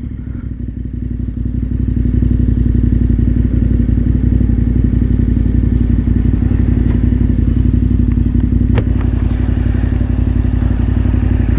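KTM 1290 Super Adventure R's V-twin, fitted with an aftermarket Akrapovič exhaust, running steadily at low revs in slow traffic. It grows a little louder over the first two seconds, with a single sharp click about nine seconds in.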